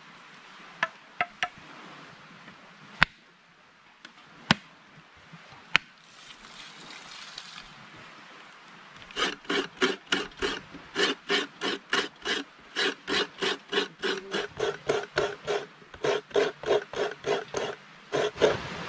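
Several sharp knocks, then from about nine seconds in a steady run of hand scraping strokes, about three a second, rasping.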